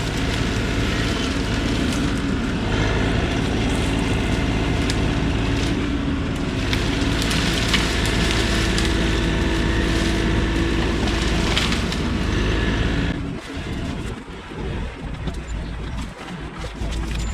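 Diesel engine of a compact earthmoving machine working steadily at high revs, with scattered sharp cracks; about 13 seconds in the engine sound drops away and the sound turns quieter and uneven.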